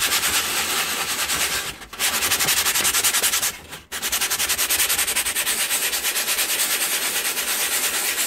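Sheet of medium-grit sandpaper rubbed by hand back and forth over a painted canvas in rapid scratchy strokes, sanding down raised blobs of dried acrylic paint. The rubbing breaks off briefly twice, about two seconds and about four seconds in.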